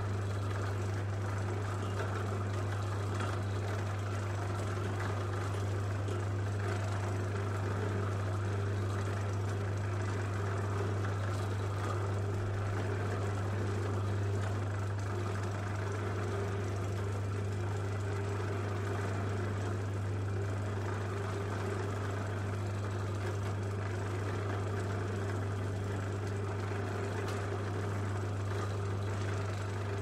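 Electric motor running at a constant speed: a steady low hum with fainter higher tones over a light mechanical rush.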